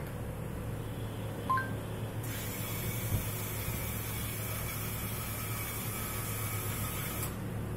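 Small DC gear motors of a voice-controlled robot car running, driving it backwards: a steady hiss-like whir that starts about two seconds in and stops about seven seconds in, over a low steady hum. A brief two-tone chirp sounds about a second and a half in.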